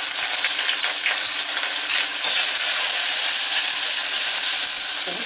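Grated onion frying in hot oil in an aluminium saucepan, with a steady sizzling hiss and a few light clicks of a spoon stirring it. The onion is just starting to fry before it browns.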